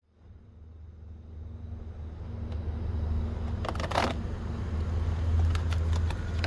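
Paper coffee package crinkling and rustling as it is handled, loudest in a short burst about four seconds in, with a few lighter crackles afterwards, over a steady low hum.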